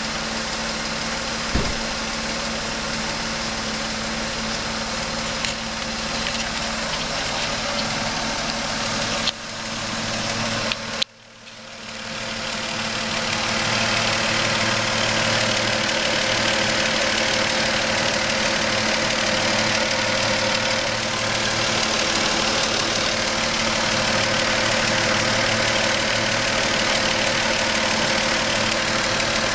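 Car engine idling with a hissing sound over it and a noise the owner suspects is engine knocking. The sound drops away sharply about eleven seconds in and builds back up over the next few seconds.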